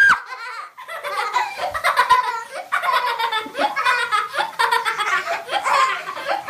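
Young girls laughing hard, a steady run of short rapid bursts of laughter.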